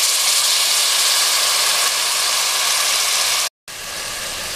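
Freshly washed raw mutton sizzling loudly in hot oil in a pan with fried onions and spices, a steady hiss. The sound cuts out for a moment about three and a half seconds in and comes back a little quieter.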